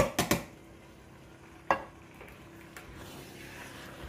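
A few sharp knocks of a can and wooden spoon against a stainless steel pot as chilli beans are emptied in: three close together at the start, another about halfway through. Then a wooden spoon stirring the mince filling over a faint sizzle.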